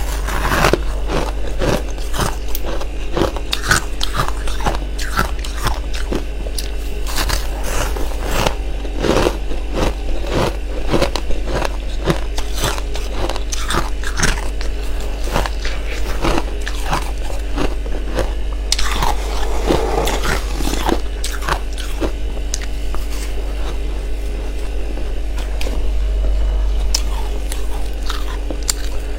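Close-miked biting and chewing of freezer frost: rapid, irregular crunches throughout, heaviest about two-thirds of the way through, over a steady low hum.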